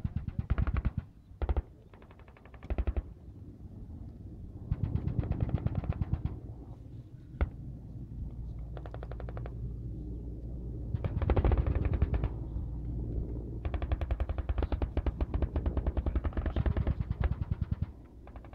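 Bursts of automatic weapon fire, strings of rapid shots of varying length with short pauses between, and a single shot about seven seconds in.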